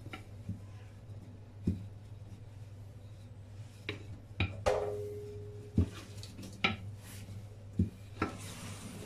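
Wooden rolling pin rolling out parotta dough on a granite countertop, with scattered sharp knocks as the pin strikes the stone, about eight in all; one knock near the middle rings on briefly. A low steady hum runs underneath.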